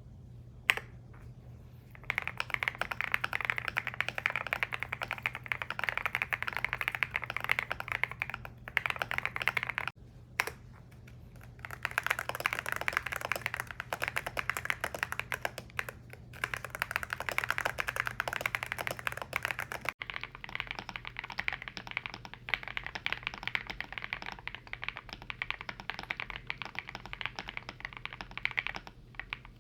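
Fast typing on a YUNZII C75 mechanical keyboard: a dense, continuous stream of key clacks. It starts about two seconds in, breaks briefly around the ten-second mark, and sounds duller, with less treble, after about twenty seconds.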